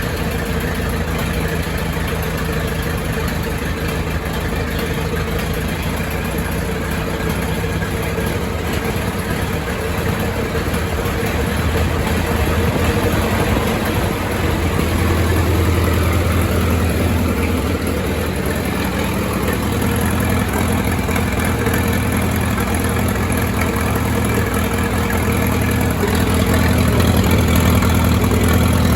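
1928 Farmall Regular tractor's four-cylinder engine running at a steady idle, a little louder and deeper from about halfway through and again near the end.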